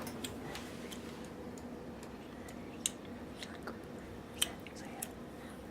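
Faint steady hum with a few scattered light clicks.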